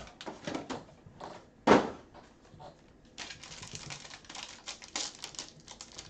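Trading cards being handled and shuffled on a tabletop: quick clicks and rustling, with one sharp knock a bit under two seconds in and a denser run of clicking from about three seconds on.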